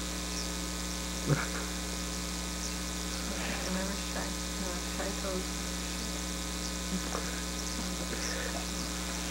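Steady electrical mains hum with a stack of evenly spaced overtones. There is a short tap about a second in, and a few faint, brief vocal sounds in the middle.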